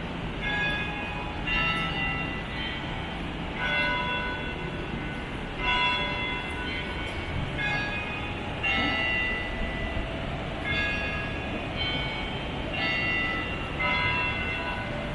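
Bells ringing a sequence of different notes, about one strike a second, each note ringing on briefly, over a steady low rumble of traffic.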